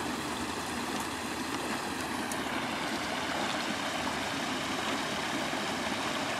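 Water rushing steadily through a blasted breach in a beaver dam as the flooded pond behind it drains.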